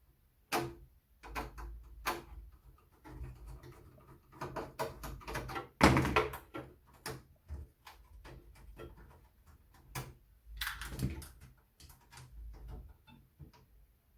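Irregular clicks, knocks and scrapes of metal and plastic computer parts being handled as an expansion card is worked out of an early Compaq Portable's case. The loudest knock comes about six seconds in, and another cluster follows near eleven seconds.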